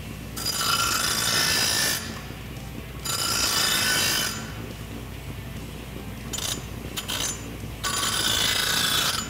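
Bench grinder running with a steady hum, its wheel screeching against the sawn end of a steel exhaust pipe in three long passes of one to two seconds each, with a few short touches in between: deburring the cut edge.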